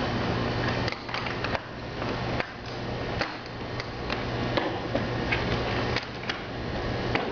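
Side panel door and latches of an insulated pallet shipper being handled: scattered light knocks and clicks, about ten, over a steady low hum of room ventilation.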